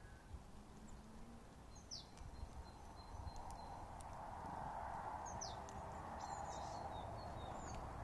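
Small songbirds calling: a few short, high, falling chirps, about two seconds in and again several times in the second half. Behind them a faint rushing noise swells after a few seconds.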